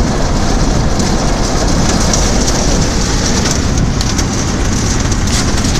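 Hail and heavy rain pelting a car's roof and windows, heard from inside the cabin as a dense, steady patter with scattered sharper hits.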